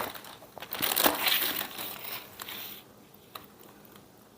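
Plastic zip-top bag crinkling and rustling as it is handled, loudest about a second in and fading out before the three-second mark.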